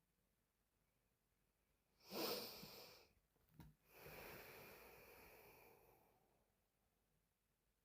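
A sleeping woman snoring: one loud snore about two seconds in, a brief click, then a longer, fainter breath that fades out.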